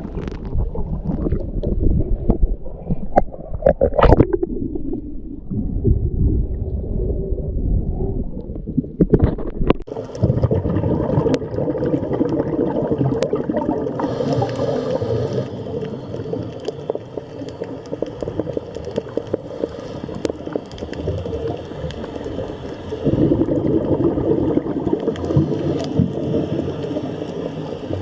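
Underwater ocean ambience: a low rumbling wash of water with gurgling, which changes about ten seconds in to a fizzier, crackling texture with faint clicks.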